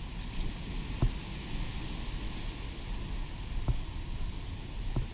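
Gusty wind rushing through trees, with low rumbling buffeting on the microphone and a few soft thumps.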